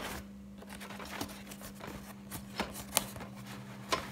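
Cardboard box being handled and opened by hand: scattered clicks, taps and scrapes of corrugated cardboard, the sharpest about three seconds in, over a low steady hum.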